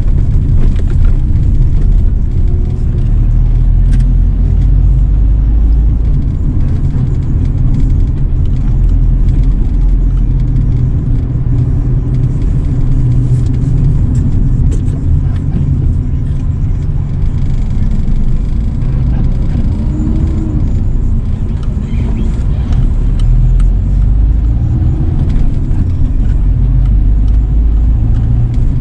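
Steady low rumble of a car's engine and tyres, heard from inside the cabin while driving at low speed.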